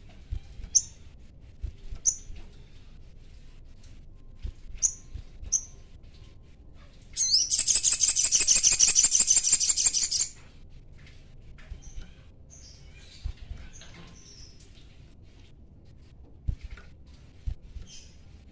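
Male sogon sunbird in breeding condition calling: sharp, high single chirps now and then, and about seven seconds in a loud, very fast high trill lasting about three seconds, then more scattered chirps.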